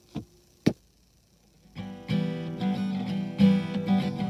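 Two short clicks, then about two seconds in a strummed guitar starts playing chords as the instrumental introduction to a hymn.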